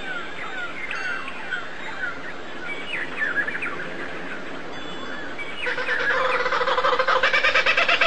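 Birds calling: a quick series of short, sweeping chirps, then from about six seconds in a louder, harsher call with a rapid pulsing rattle that grows louder.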